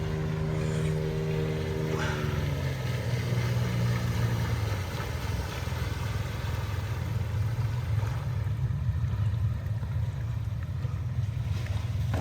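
Small ferry boat's outboard motor running as the boat comes in, its pitch dropping about two seconds in as it throttles back, then running steadily at lower revs.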